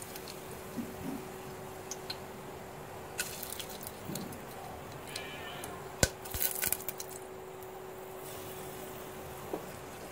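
A few small clicks and clinks as whole spices, cinnamon, cloves and cardamom pods, are dropped into hot oil in a pressure cooker. The sharpest click comes about six seconds in, and a faint steady hum runs underneath.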